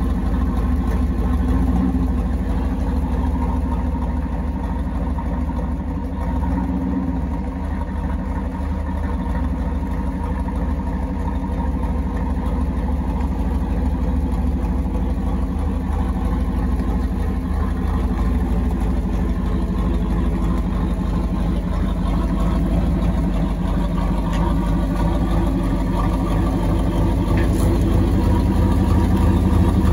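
Third-generation Chevrolet Camaro engine idling unevenly, steady with a slight rise in level near the end. The rough running comes from a misfire, in an engine with no coolant in it.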